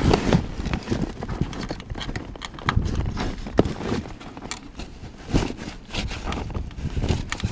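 Irregular clicks and knocks of metal sail fittings and pliers being worked by hand, with rustling of the mainsail's cloth close to the microphone.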